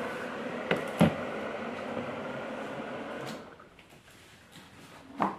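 Rexton ceiling exhaust fan running with a steady, quiet whir, with two light clicks about a second in. A little past three seconds the whir dies away as the fan is switched off, and a click comes near the end.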